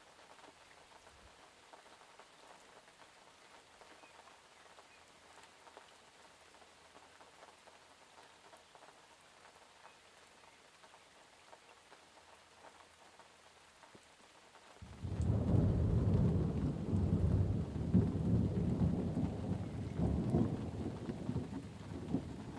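Steady, faint rainfall. About fifteen seconds in, a loud roll of thunder sets in suddenly and rumbles on, easing off near the end.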